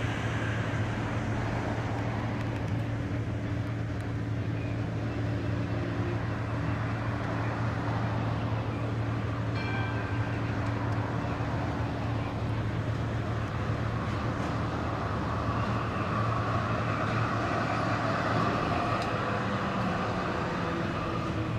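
Melbourne tram running along a city street: a steady low electrical hum over road and wheel noise, with a brief high tone about ten seconds in.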